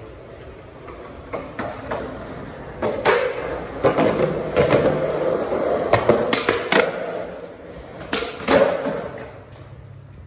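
Skateboard wheels rolling on smooth concrete, broken by several sharp clacks of the deck and tail striking the ground. The rolling dies away near the end as the board comes to rest.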